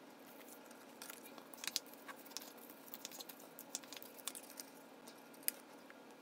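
Hands handling and folding small pieces of cardstock for a mini envelope: scattered soft taps, clicks and paper rustles.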